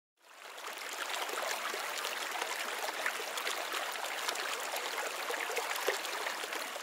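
Rushing, splashing water of a waterfall, fading in just after the start and then running steadily.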